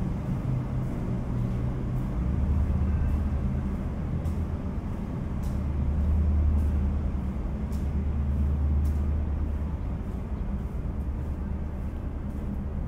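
Footsteps on a stone floor, faint and about a second apart, over a steady low rumble. The rumble swells about two seconds in and is loudest around six seconds.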